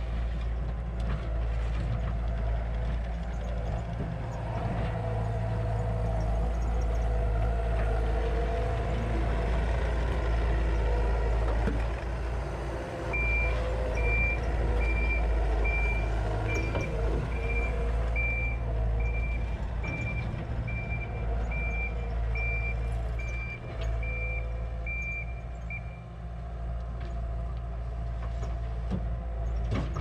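Takeuchi TL150 compact track loader's diesel engine running steadily as the machine works the ground. About halfway through, its high-pitched backup alarm beeps steadily for roughly thirteen seconds while it reverses.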